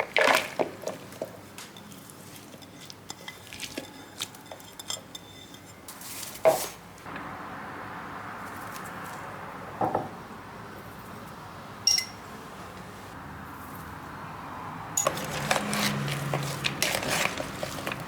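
Dishes and cutlery clinking and knocking: scattered single clinks, one ringing clink about twelve seconds in, and a busier run of clatter near the end, over a steady hiss from about seven seconds in.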